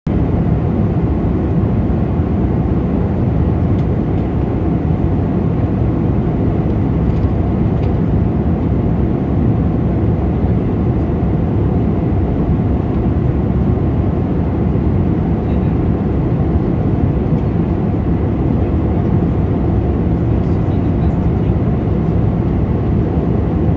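Steady, low cabin noise inside an Airbus A320-214 in flight: the even rush of its CFM56 jet engines and the air streaming past the fuselage, heard at a window seat.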